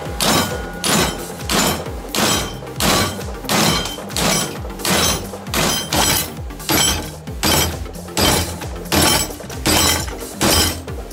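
Hand hammer striking red-hot steel clamped in a bench vise: steady forging blows at about three every two seconds, some fifteen in all.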